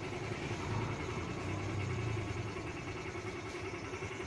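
Steady low engine drone of a motor vehicle running, even throughout with no breaks.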